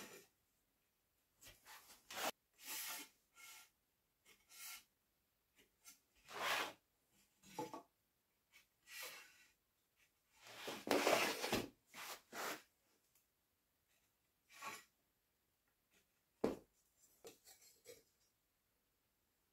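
Pencil scratching across pine battens against a speed square, in short strokes, with rubbing and scraping as the battens and square are shifted on the wooden floor. A longer, louder scrape near the middle and one sharp knock later on.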